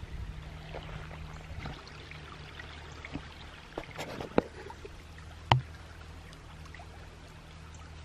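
Small, shallow creek trickling over rocks, a steady faint burble, with a few short crackles around four and five and a half seconds in.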